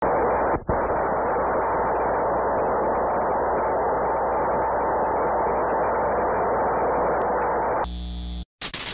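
Steady, muffled static hiss, dipping briefly about half a second in. Near the end it turns glitchy, cuts out for a moment, then comes back as a short loud burst of static.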